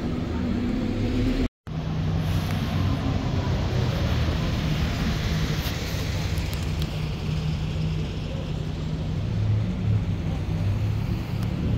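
City buses and street traffic: engines running with a steady low hum over road noise. The sound drops out briefly about one and a half seconds in.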